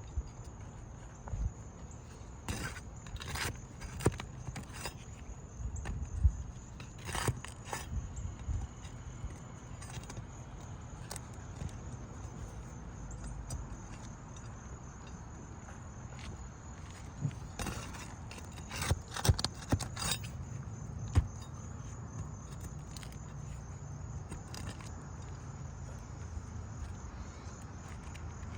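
Hammer and steel flat bar working under asphalt roof shingles to pry out nails: scattered metallic clinks, taps and scrapes in short clusters, with long pauses between them.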